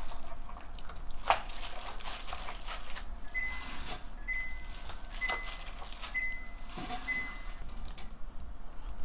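Wet squelching and slapping of hands working beef short ribs into a soy marinade in a plastic mixing bowl, with irregular clicks and splats. In the middle, five short high electronic beeps sound about a second apart.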